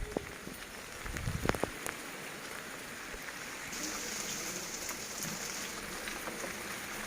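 Heavy rain falling steadily, a dense even hiss of drops, with a few sharper knocks in the first two seconds.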